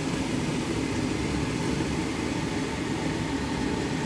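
Steady rushing noise from the stove while a frying pan piled with leafy greens sautés on the hob, even throughout with no separate pops or clatters.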